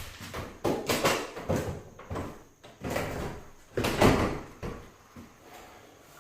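Replacement window unit being pushed and set into its opening: a series of knocks, bumps and scrapes of the frame against the opening, the loudest about four seconds in.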